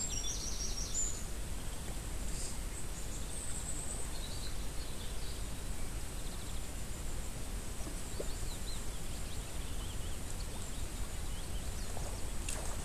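Outdoor background noise: a steady low rumble with scattered high bird chirps, and one short sharp click near the end.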